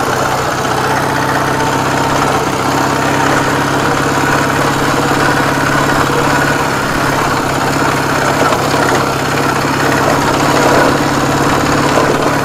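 Ural motorcycle's boxer-twin engine running steadily under way, over a steady rushing noise.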